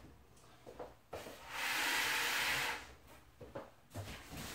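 Something slid across a tabletop: a steady scraping hiss lasting about a second and a half, with a few light knocks around it.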